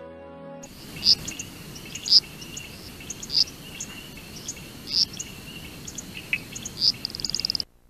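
Night ambience of crickets: a steady high chirping with louder sharp chirps about once a second, ending in a fast trill near the end.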